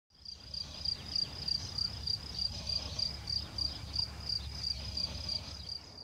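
A cricket chirping in a steady, even rhythm of about three or four chirps a second, over a low rumble.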